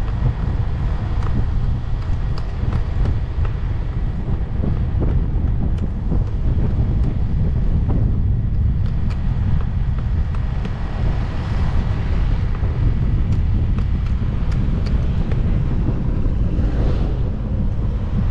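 Wind rumbling on the microphone of a moving motorcycle, with the bike's engine and road noise underneath as a steady low drone. The noise swells twice, once around the middle and once near the end.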